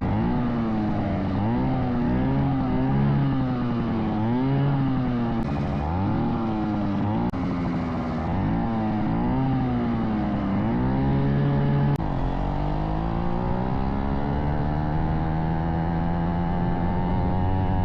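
Several small motorized-bicycle engines revving at once, their pitch rising and falling in repeated blips. From about twelve seconds in, one engine holds a long, slow climb in pitch.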